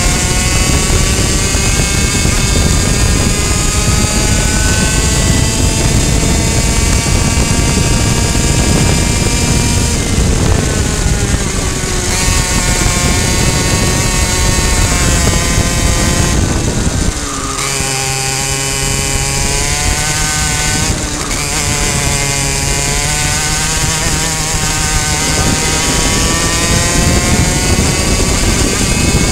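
Two-stroke racing kart engine running at high revs, heard close up from on board over steady wind noise. Its pitch sags about ten seconds in and drops sharply about seventeen seconds in as the throttle is lifted for corners, then climbs again as it pulls back up toward twelve thousand rpm.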